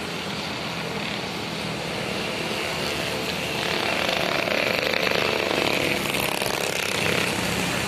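Steady engine drone with a low hum, swelling louder from about three and a half seconds in and easing off slightly near the end.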